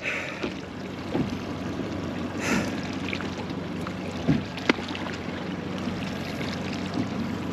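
Water lapping and sloshing against a small boat's hull, with a faint steady hum underneath and a few sharp clicks and short splashes.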